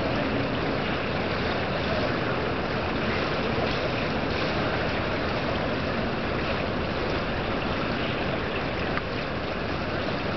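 Steady wind on the microphone, an even hiss with a slight drop in level about nine seconds in.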